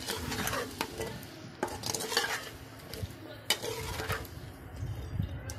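A slotted metal spoon scraping and clicking against a kadai as chunks of goat meat and tomato are stirred, at irregular strokes, over the light sizzle of the meat frying in oil.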